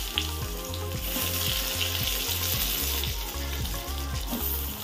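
Eggplant pieces, coated in salt and turmeric, sizzling as they fry in hot mustard oil in a kadai over a low gas flame. A steady background music beat with a stepping bass line runs underneath.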